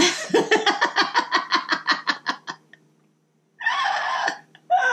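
A woman laughing hard, a long run of evenly spaced 'ha' pulses, about seven a second, that fades out over two and a half seconds. Two short breathy bursts follow near the end.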